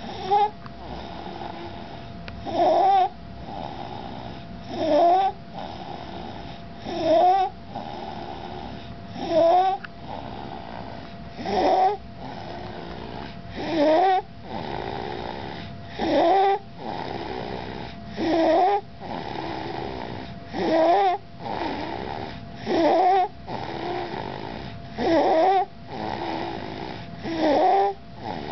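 A 21-month-old toddler breathing with stridor in sleep, the sign of a narrowed upper airway. Each loud, pitched, noisy breath lasts about half a second and comes about every two seconds, with quieter breathing in between.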